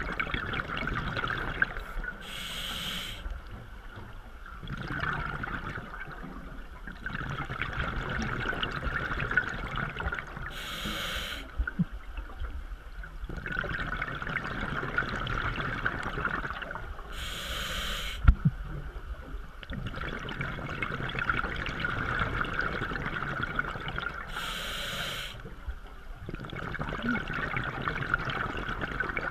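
Scuba diver breathing through a regulator, heard underwater: four short hissing inhalations about seven seconds apart, with bubbling, rumbling exhalations between them.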